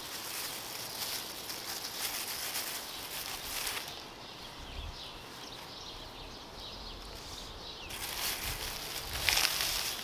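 Plastic carry-out bag and paper sandwich wrapper crinkling and rustling as a sub sandwich is pulled out and unwrapped by hand, busiest in the first few seconds and loudest again near the end.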